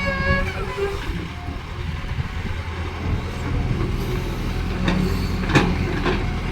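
Excavator's diesel engine running steadily under load, with a brief high-pitched squeal at the start and a few sharp clanks around five to six seconds in.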